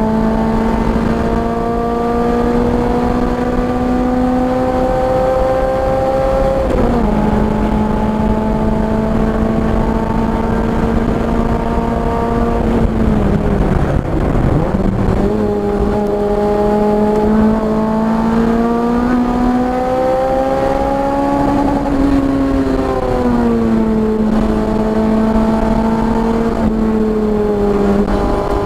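Car engine running hard on a race track: its note climbs slowly and drops sharply several times at the gear changes, and about halfway through it falls away and jumps back up as the car slows and shifts down.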